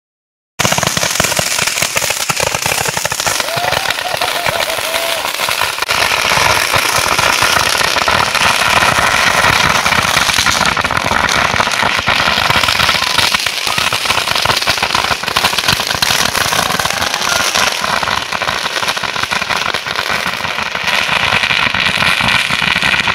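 Fireworks fired from a handheld firework tube, a dense, unbroken rapid crackling and popping of burning shots and crackling ground fireworks. It starts suddenly about half a second in.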